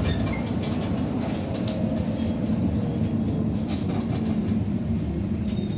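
Irisbus Citelis 12 m city bus heard from inside the cabin while driving: steady engine and road noise with light rattling clicks.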